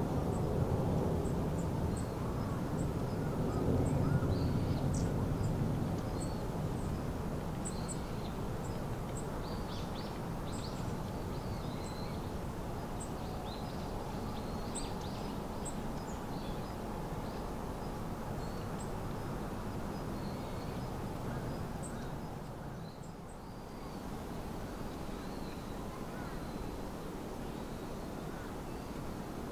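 Small birds chirping in short, high calls throughout, over a steady outdoor background hiss. A low rumble dies away over the first few seconds.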